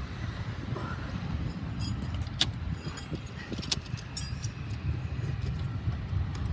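Metal latch and turnbuckle fittings on an A350 thrust reverser cowl clinking and clicking as they are handled, a few sharp clicks spread through, over a steady low rumble.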